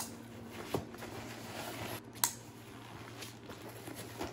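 Hiking backpack being packed by hand: nylon fabric rustling, with three short clicks from the pack's buckles or pocket, the sharpest a little past two seconds in, over a faint steady hum.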